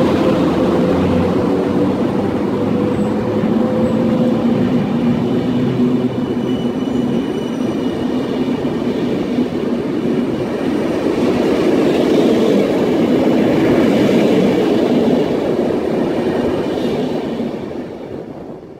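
Intercity passenger coaches rolling past close by as a train hauled by an EP09 electric locomotive pulls out, with a steady noise of wheels on rail. A hum heard at first fades over the first several seconds, and the sound fades out near the end.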